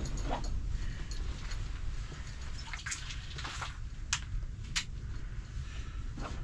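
Steady low rumble inside an ice-fishing tent, with a handful of short light clicks and taps from gear being handled, most of them in the middle of the stretch.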